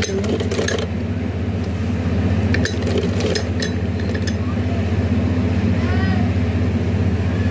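Domestic sewing machine running steadily, the needle stitching through fabric with a fast, even mechanical hum. A few sharp clicks come about three seconds in.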